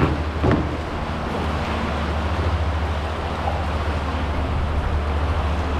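Wind buffeting the microphone over choppy water lapping around concrete pier pilings, a steady low rumble with a couple of brief knocks right at the start.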